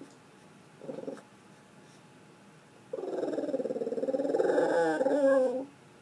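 A pet dog making grumbling, moaning vocal noises: a short one about a second in, then a long one of nearly three seconds, its pitch wavering and bending near the end.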